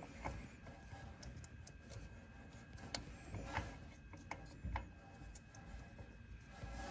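Scattered small clicks and light handling noise as wire connectors are pushed back onto the terminals of an espresso machine's vibratory pump, over a faint steady hum.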